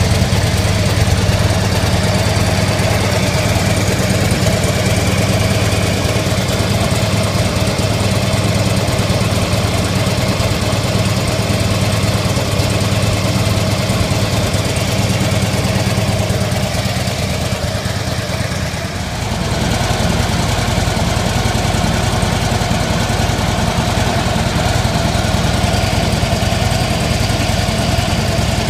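2013 Harley-Davidson Electra Glide Ultra Limited's air-cooled Twin Cam 103 V-twin idling steadily, running well on fresh engine and transmission oil. The tone and level dip briefly and shift about nineteen seconds in.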